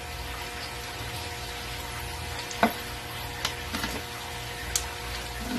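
Pork cubes frying in a stainless steel wok with a steady, quiet sizzle. A metal spatula clicks sharply against the wok a few times as the pork is stirred, loudest about halfway through.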